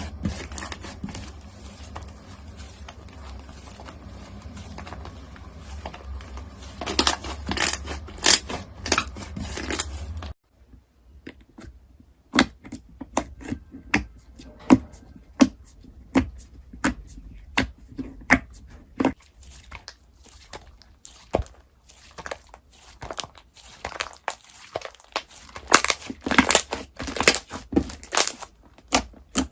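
Crunchy slime being squeezed and pressed by hand: irregular crisp crackles and pops. A low hum sits under the first part until a cut about ten seconds in. After the cut come sharper, separate clicks, thickest near the end.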